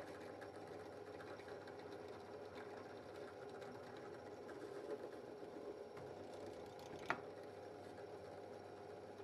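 Drill press motor running with a steady hum while a thin twist bit drills into a stone pine block, with one sharp click about seven seconds in.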